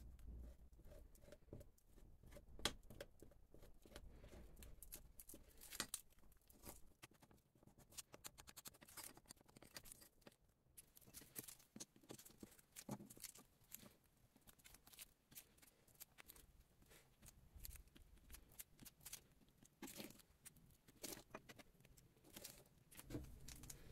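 Near silence with faint, scattered clicks and rubbing: small handling noises as gloved fingers spread adhesive on wooden handle scales and a steel tang and move them on the bench.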